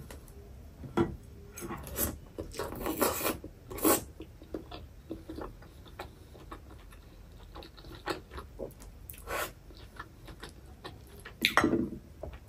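Close-miked mukbang eating: chewing soft food, green paneer momos and chapagetti noodles, with chopsticks clicking against the plate and dipping bowl in short scattered bursts.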